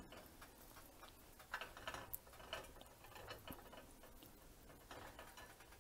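Near silence with faint, scattered ticks and small pops: a pan of mushroom and cabbage gravy simmering.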